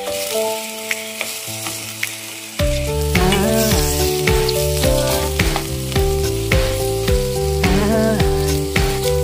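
Chicken pieces sizzling in oil in a stainless steel pot with onions, garlic and ginger, stirred with a spatula. Background music plays over it, a melody joined by a bass and drum beat about two and a half seconds in.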